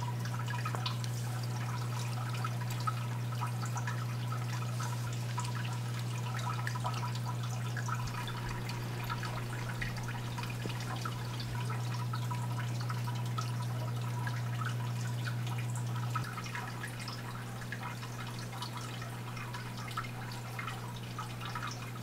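Water trickling and dripping in a planted paludarium, many small drips scattered throughout, over a steady low hum whose level steps down a few times.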